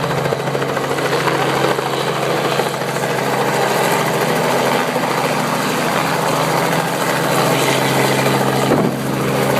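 Helicopter running steadily: a loud, even drone of engine and rotor with a constant low hum.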